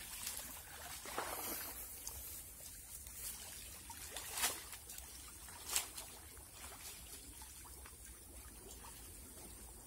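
Water splashing and trickling around people wading through a shallow muddy stream while hauling a fishing net, with a few brief louder splashes, the strongest about four and a half and six seconds in.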